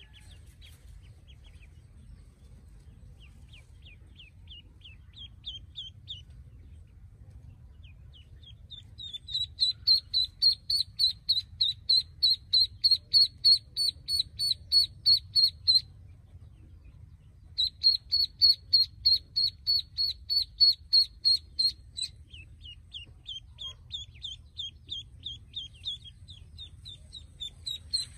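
Pekin ducklings peeping: quick runs of short, high, even peeps, about three a second, that start faint, grow loud with a short break in the middle, and turn softer near the end.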